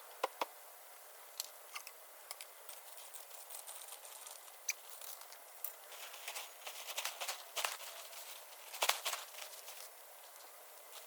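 Synthetic landscape fabric being handled and unrolled: irregular crackling and rustling with scattered sharp clicks. It opens with two sharp clicks, grows busier in the second half, and is loudest near the end.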